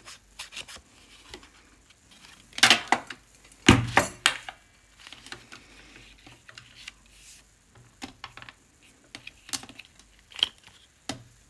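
Paper corners being scuffed with a distressing tool: short scraping strokes and small clicks, the loudest about three and four seconds in, the second with a knock on the table.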